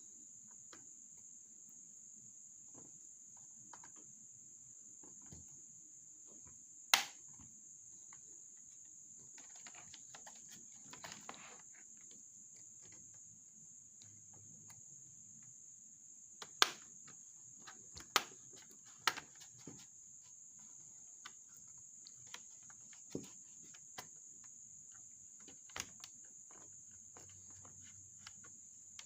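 Sharp clicks and taps from handling the opened HP 15 laptop's plastic and metal parts, scattered one by one. A short scraping, rustling stretch comes about ten seconds in. A steady high-pitched whine runs under it all.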